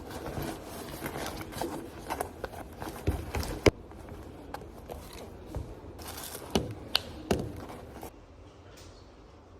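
Rustling with a series of light knocks and clicks as objects are handled, settling to quiet room tone near the end.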